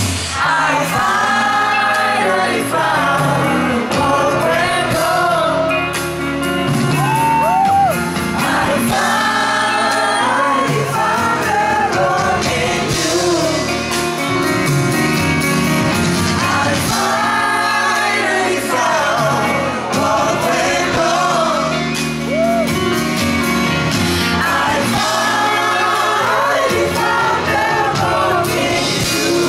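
A woman singing live into a microphone over backing music, her voice wavering and sliding in pitch across sustained phrases.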